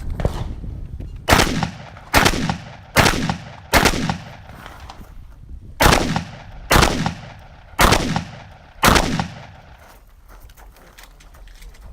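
Shotgun firing slugs: eight shots in two strings of four, about a second apart, with a pause of about two seconds between the strings. Each shot has a short fading echo.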